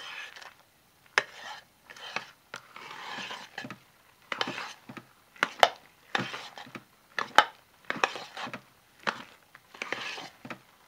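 A metal spoon stirring and scraping thick hot-process soap paste in a ceramic crock pot insert, with sharp clinks of the spoon against the pot about once a second between scraping strokes. The sound is the mixing of crumbled old salt-bar soap into the freshly cooked batch.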